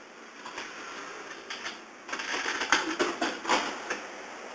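Coins pushed one by one into the slot of an old box-lunch vending machine, clinking and clicking through its coin mechanism. A busier run of sharp clicks and metallic clatter comes about halfway through.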